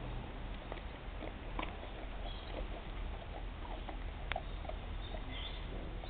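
Dog crunching pieces of dry biscuit picked up off the ground: a scatter of short, crisp crunches and clicks, the sharpest about four seconds in, over a steady low background rumble.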